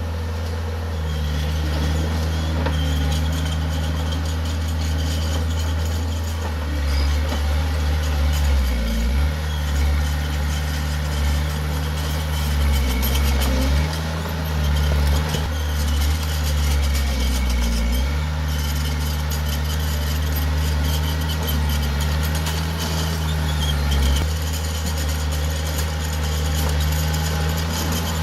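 Heavy diesel engine of earthmoving machinery running steadily at a low pitch. Its note dips briefly about three times as the machine takes load.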